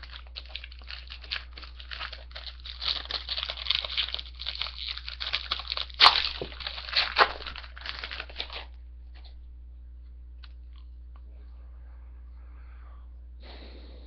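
Foil wrapper of a 2005 Parkhurst hockey card pack being torn open and crinkled by hand: quick rustling, crackling bursts that are loudest about six seconds in and stop a little after eight seconds.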